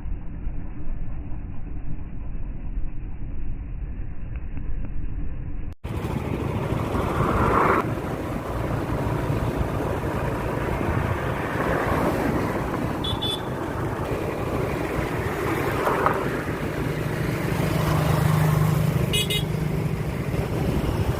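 Road traffic: vehicle engines running, with horns honking several times in short blasts. The sound changes abruptly about six seconds in.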